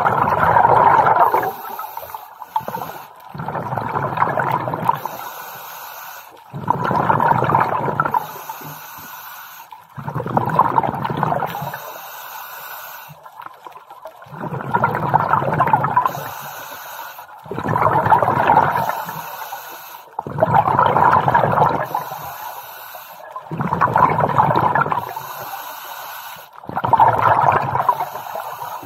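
Scuba regulator exhaust bubbles: a diver breathing out through the regulator in a steady rhythm, about nine gurgling bursts of bubbles, one every three seconds or so, with a faint high hiss between them, heard through the camera's underwater housing.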